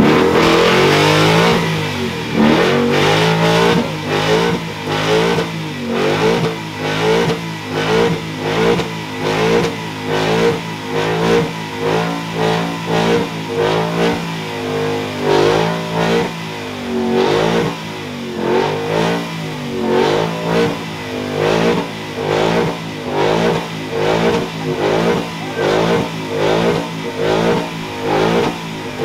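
Ford Mustang doing a burnout, its engine held at high revs and spinning the rear tyres. It runs loudest for the first couple of seconds, then the revs rise and fall in a steady pulse about once a second.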